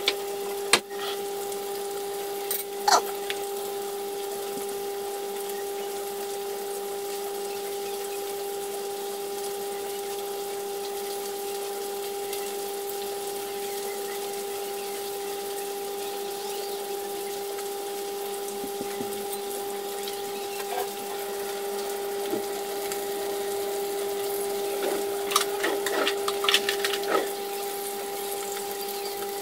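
Needlefish shallow-frying in a pan of oil, a steady sizzle under a constant humming tone. There are a couple of sharp knocks in the first few seconds, and near the end a run of clicks and scrapes as metal forks turn the fish in the pan.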